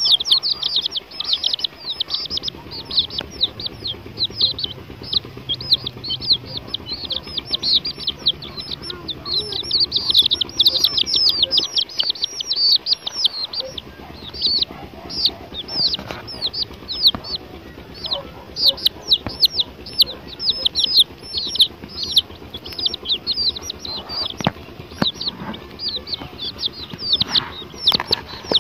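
Chicks peeping in a group: a continuous chorus of high, short, downward-sliding peeps, several a second.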